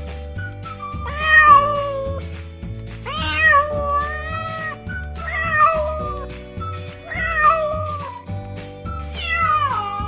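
A cat meowing five times, roughly every two seconds, each call about a second long; the last call falls in pitch. Background music with a repeating bass line plays underneath.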